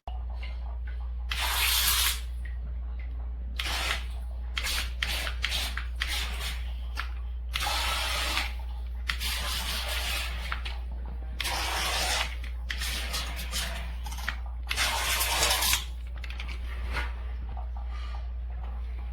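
Repeated hissing bursts of water spray and splashing, about five loud ones, as a mini RC boat's propeller churns the water, over a steady low hum.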